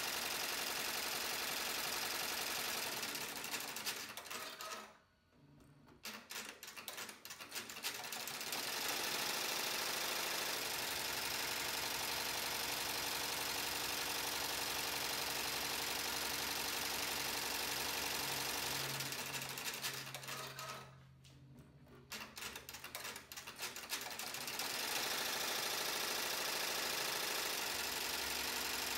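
Single-head 12-needle MakeIT P&E commercial embroidery machine stitching at speed with a steady, rapid needle clatter. About four seconds in and again about twenty seconds in, it winds down to a brief stop with a few scattered clicks, then starts stitching again.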